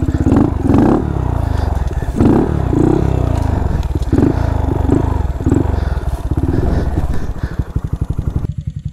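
Honda Monkey 125's single-cylinder four-stroke engine given repeated short bursts of throttle while the bike is worked through logs and brush, then dropping back to a lumpy idle near the end.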